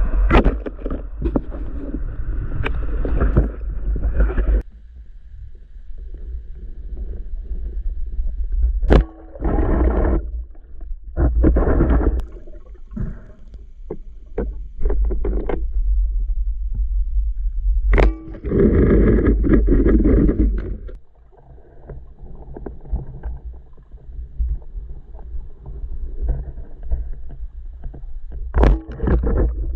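Underwater sound from a spearfisher's camera: a constant low rumble with repeated bursts of bubbling noise lasting a second or two, and a few sharp clicks, one about nine seconds in, one midway and one near the end.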